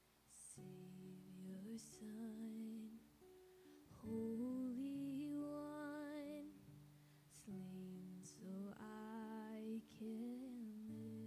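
Female voice singing long held notes with vibrato over acoustic guitar chords, in two phrases, the first starting about four seconds in and the second shortly after eight seconds.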